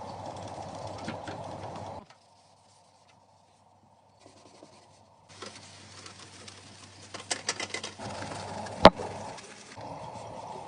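Steady electrical hum of a running appliance, with a low mains tone. It cuts to near silence about two seconds in and comes back, then a run of light ticks and one sharp, loud click near the end.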